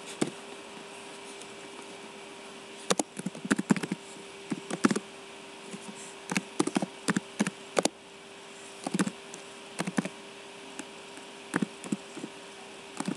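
Computer keyboard typing in short bursts of keystrokes, with pauses between them, over a steady faint hum and hiss.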